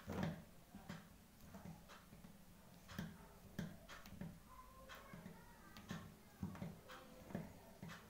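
Faint, irregular clicks and rustles of the plastic-insulated conductors of a Cat 6 network cable being untwisted and straightened by hand, about one or two small ticks a second.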